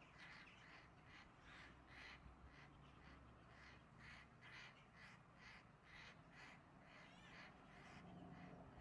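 Crow cawing in a fast, even series of short harsh calls, about two to three a second, faint: alarm or distress calling from a crow under attack by a hawk.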